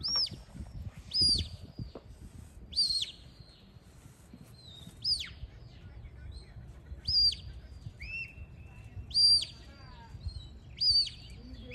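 Shepherd's whistle commands from a sheepdog handler: about seven short, high whistles, each rising and falling, some with a flat held note, spaced one to two seconds apart.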